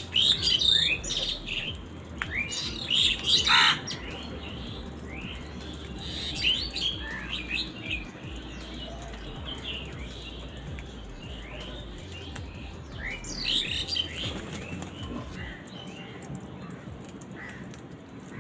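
A busy chorus of birds chirping: many short, quick calls overlapping one another, loudest in bursts during the first few seconds and again about thirteen seconds in.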